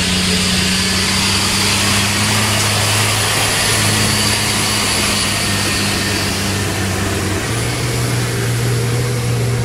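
Caterpillar 3116 turbo diesel of a homebuilt F-250 monster truck running under load as the truck drives through shallow water. The engine note holds steady, then steps up slightly about three-quarters of the way through, over a constant hiss of water spray.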